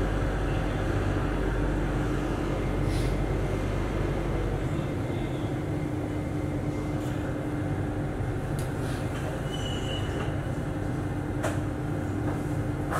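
Cabin noise of a Singapore MRT metro train slowing into a station: a steady rumble of wheels and running gear. A steady hum comes in about five seconds in and fades out around ten seconds, with a few sharp clicks along the way.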